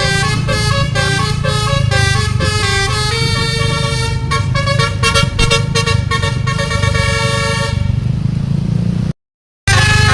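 Telolet basuri musical bus horn playing a quick tune of stepped notes, with a held chord in the middle, over the steady rumble of the bus engine. The notes give way to noise near the end, and the sound cuts out for about half a second before starting again.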